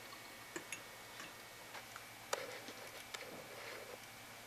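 Quiet room with a few faint, irregularly spaced light clicks and ticks, the clearest a little past two seconds in.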